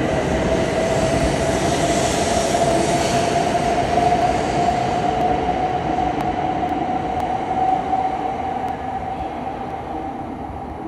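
An E7/W7-series Shinkansen train pulling out of the station. Its traction motors give a whine that rises slowly in pitch as it gathers speed, over a dense rush of running noise that fades in the last few seconds as the train draws away.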